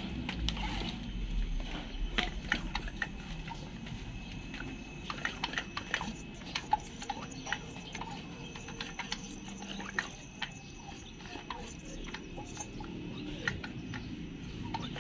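Irregular light clicks and taps of metal parts and tools being handled as an ignition coil is positioned and fastened against the flywheel of a small grass cutter engine.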